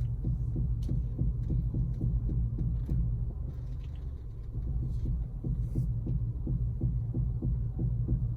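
Honda CR-V running with a steady low engine hum and pulse while the steering is turned, with a few faint clicks: the small crackle on steering that comes from worn front strut mount bearings.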